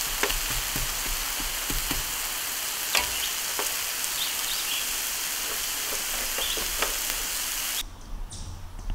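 Broccoli, cauliflower rice and onions sizzling in buttery spread on a propane flat-top griddle: a steady frying hiss with occasional sharp ticks. It cuts off suddenly near the end.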